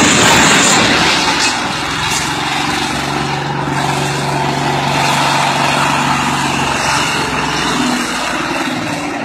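Noise of rock and debris sliding as an overturned crane truck settles, fading within the first second or two. Then a heavy truck engine runs at a steady, low pitch.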